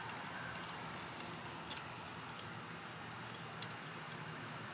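Crickets chirring steadily in one constant high-pitched drone, with a few faint clicks.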